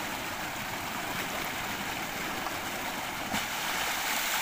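Steady gushing of water pouring from an irrigation pump's outlet pipe into a concrete tank and splashing over bathers, with a brief sharper splash a little over three seconds in.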